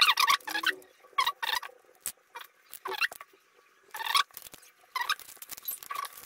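Wire being cut and bent by hand: a string of short, irregular scrapes and clicks.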